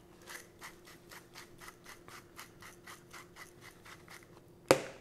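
Hand-twisted seasoning grinder cracking salt or peppercorns over fish fillets, a rhythmic gritty crunching of about four strokes a second. Near the end a single sharp knock, the loudest sound.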